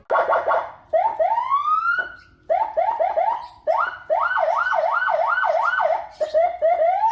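Senken CJB100BD electronic vehicle siren stepping through its tones. It goes from quick chirps to slow rising wails, then to a fast up-and-down yelp of about two and a half cycles a second around the middle, and back to short chirps and a rising sweep near the end.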